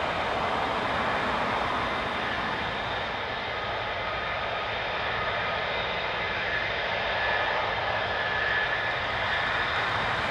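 Twin jet engines of several F-15 fighters running at taxi power: a steady jet noise with a few faint high whining tones.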